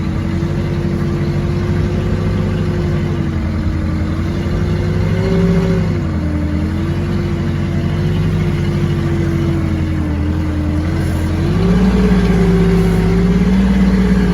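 Forklift engine running under load while lifting a heavy lathe. Its pitch wavers, rising briefly about five seconds in and again from about twelve seconds, where it gets louder.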